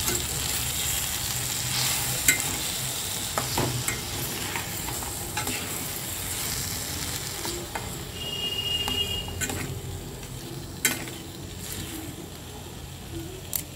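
Boiled olives and jaggery sizzling in oil in a stainless steel pan as they are stirred, the spatula clicking and scraping on the metal now and then; the jaggery is melting into the olives.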